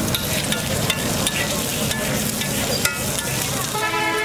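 Halved boiled eggs sizzling on a hot flat iron griddle as liquid is squirted onto them from a squeeze bottle, with a steady hiss and scattered crackles.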